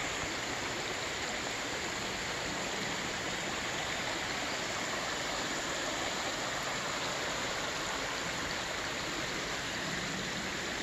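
Shallow, rocky forest creek carrying heavy runoff, the water running steadily over the stones.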